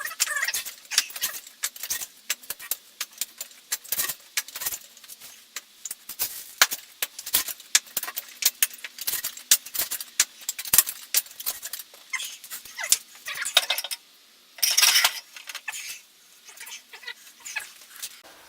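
Irregular metal clinks and knocks of tools, with some squeaks, as a motorcycle tyre is worked off its rim with a bead breaker and tyre levers. A louder scraping burst lasting about a second comes near the end.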